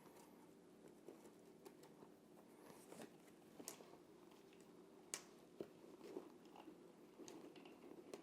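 Near silence with faint scattered clicks and scrapes of thin picture-hanging wire being twisted by hand at a frame hook, over a low steady room hum.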